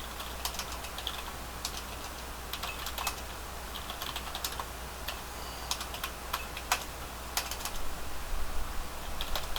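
Typing on a computer keyboard: irregular key clicks, entering configuration commands, over a steady low hum.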